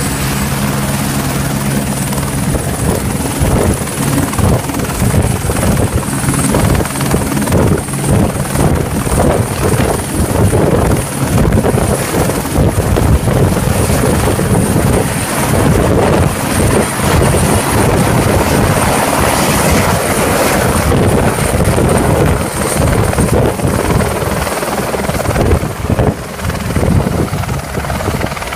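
Helicopter running loudly, its rotor blades beating fast under a steady high whine; it grows louder about four seconds in.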